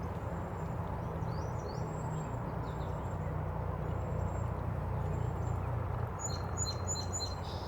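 Small songbirds chirping and calling over a steady low rushing background. Near the end comes a quick run of four bright, evenly spaced chirps.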